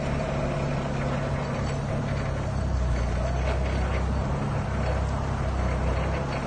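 Propane-powered Yale forklift's engine running steadily as it drives slowly forward, a little louder from about two and a half seconds in.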